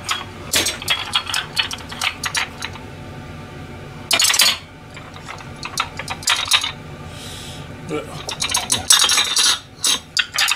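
Ceramic plates and dishes clinking and clattering against each other as they are stacked and put away on a shelf, in quick clusters of clinks, with a brief louder clatter about four seconds in.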